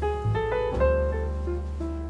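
Background piano music: a slow melody of single notes over a held bass note.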